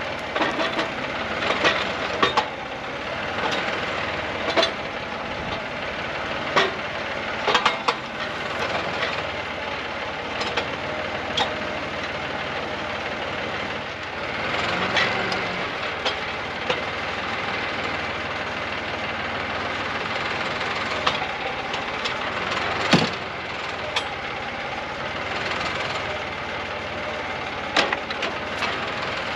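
Post hole digger at work in the ground: a steady running motor with irregular sharp knocks and cracks, the loudest a little past the middle.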